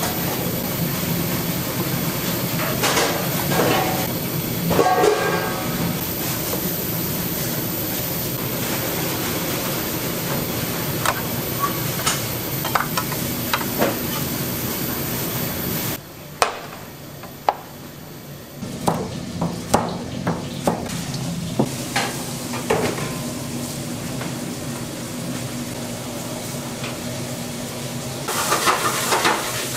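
Restaurant kitchen background: a steady hiss and hum with scattered clinks and knocks of dishes and utensils. The hiss drops away suddenly about halfway through and comes back a few seconds later.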